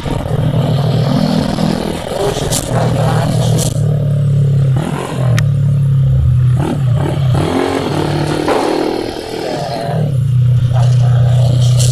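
Motorcycle engine, a bored-out Honda Supra X 125 single-cylinder four-stroke, running at steady revs, then easing off and picking up again a few times in the middle before settling back to steady running. A few sharp clicks are heard in the first half.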